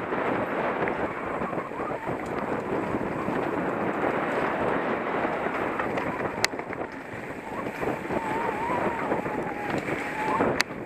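Mountain bike descending a dirt singletrack: a steady rush of wind on the microphone mixed with tyre and trail rumble, with two sharp clicks of the bike knocking over the ground.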